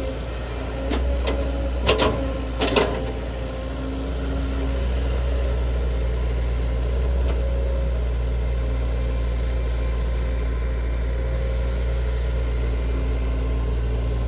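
Heavy construction machinery's diesel engine running steadily, with a few short sharp knocks about one to three seconds in.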